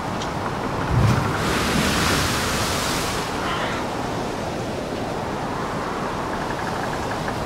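Storm ambience of waves and wind: a steady rush of surf that swells briefly about a second in.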